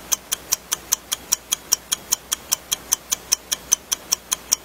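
Clock-style ticking sound effect, even and fast at about five identical sharp ticks a second.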